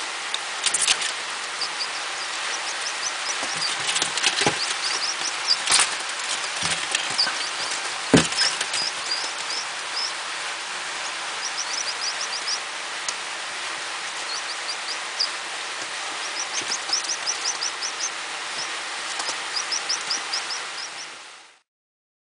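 Two-day-old pheasant chicks peeping: runs of short, high cheeps over a steady hiss, with a few sharp taps scattered through, the loudest about eight seconds in. The sound stops abruptly near the end.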